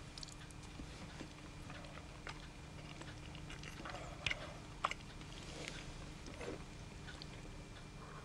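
A man eating breakfast: faint chewing with small clicks of tableware, two sharper clicks near the middle, over a faint steady hum.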